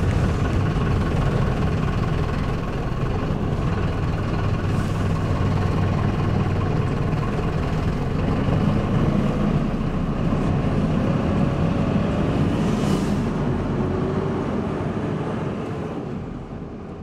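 Bus engine running, a steady low rumble with a faint whine rising in pitch midway, fading away near the end.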